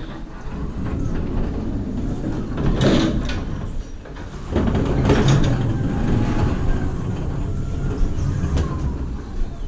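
BT Staxio electric pallet stacker being driven over a trailer's metal checker-plate floor with a tall stack of plastic pallets on its forks: a steady rumble and rattle of wheels and load, with louder clattering about three seconds in and again around five seconds.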